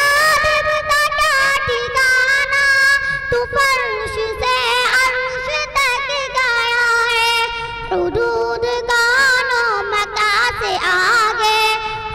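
A young girl singing solo into a microphone, in long held notes that waver in pitch.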